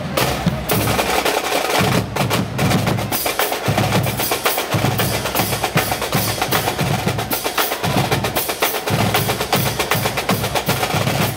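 Marching band drum line playing fast snare-drum patterns and rolls over steady bass-drum beats.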